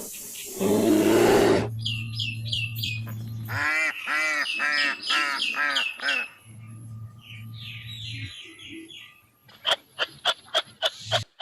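Birds calling: runs of repeated chirps and arched calls, ending in a fast string of sharp notes near the end. A short, loud rasping burst comes in the first two seconds.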